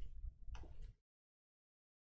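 Two faint clicks over a low hum, then the sound cuts out to dead digital silence about a second in.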